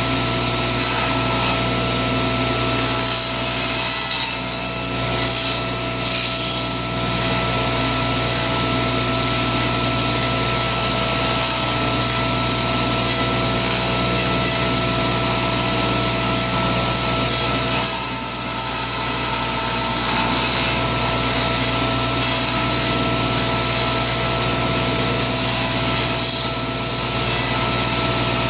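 Table saw running steadily, its blade shaving the edge of a plywood blank as the blank is turned slowly on a pivot nail and nibbled round.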